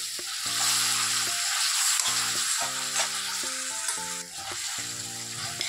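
Sliced vegetables and sauces sizzling in a stainless steel kadai as a spatula stirs them, with background music playing.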